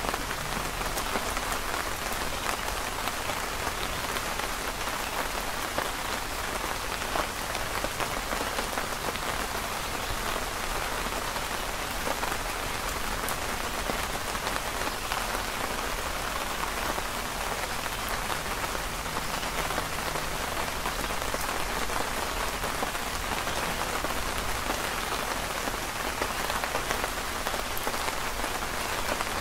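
Steady rain falling, a dense even patter of raindrops on the canopy overhead and the ground around.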